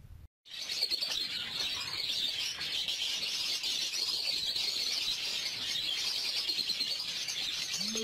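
A flock of budgerigars chattering and warbling: a dense, unbroken twitter of many birds at once. It begins about half a second in, after a short silence.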